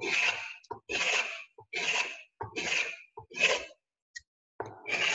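A travisher, a curved-blade spokeshave, shaving wood in a run of short swishing strokes about a second apart, the metal blade shearing through the wood, with a brief pause about four seconds in before one more stroke.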